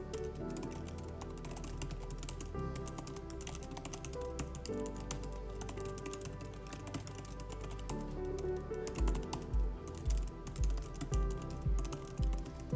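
Rapid typing on the scissor-switch keys of Apple's Magic Keyboard for iPad Pro: a quick, uneven stream of key clicks. Background music plays under it, and a steady beat of low thumps comes in about nine seconds in.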